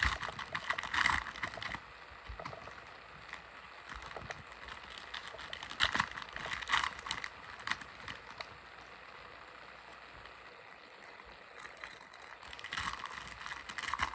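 Cellophane wrapper of a trading-card pack being torn open and crinkled: crackling in three bursts, at the start, about six seconds in, and near the end, with quieter rustling of cards being handled between.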